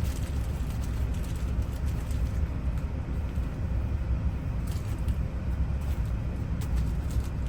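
Steady low rumble throughout, with a few faint small metallic clicks from loose ignition-lock wafers being sorted through by hand, about two thirds and near the end of the way in.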